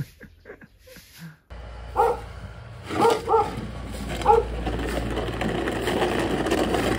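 A wooden snow pusher scraping snow along a concrete path, the scraping growing louder after the first few seconds, with short pitched animal calls about four times.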